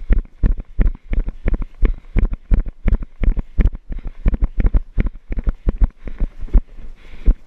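Running footfalls, heavy low thuds at about three a second, jolting a body-worn camera as its wearer runs. A light rush of wind on the microphone runs underneath.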